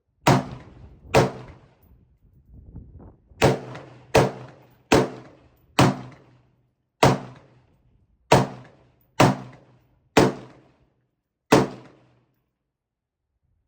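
Eleven gunshots from an AR-style pistol with an arm brace, fired semi-automatically one at a time at an uneven pace. Each is a sharp crack with a short ringing tail.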